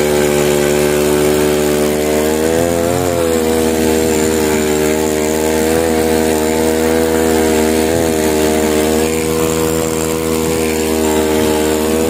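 Small fishing skiff's engine running steadily while the boat is under way, its pitch wavering briefly about three, six and eight seconds in.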